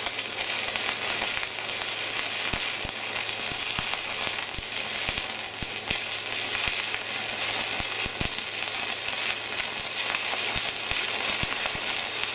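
Stick (MMA) welding arc from a MegaTec 160EF inverter, a coated electrode burning along a vertical seam in a reverse-crescent weave. It gives a steady crackling hiss with frequent sharp pops. The arc is kept short, with the electrode held a little closer to the plate.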